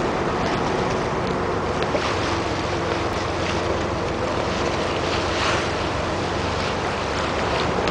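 Water taxi under way: its engine hums steadily beneath the rush of water along the hull, with wind buffeting the microphone.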